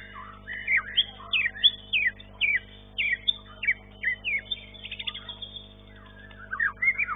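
White-rumped shama (murai batu) singing: a string of loud whistled notes that sweep sharply downward, about two a second, then, after a brief pause, a fast run of notes near the end.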